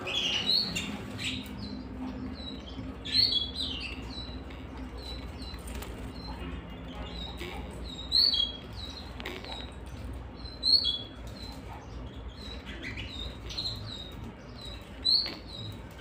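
Canaries chirping: short high call notes repeated throughout, with a few louder bursts of chirps about three, eight, eleven and fifteen seconds in.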